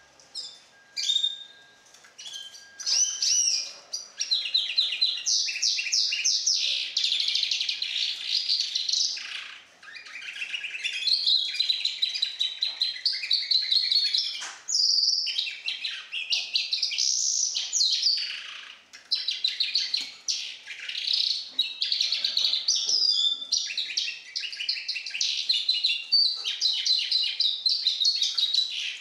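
Young goldfinch × canary hybrid singing: a few short calls, then a long, fast run of trills and warbled phrases with only brief breaks. The bird is four months old and being tutored on nightingale song, so its song is still being learned.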